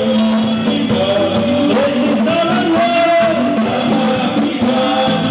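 Live concert music, loud and continuous: a man sings a melodic lead line into a microphone over a full band with guitar, in a Gnawa-rooted style.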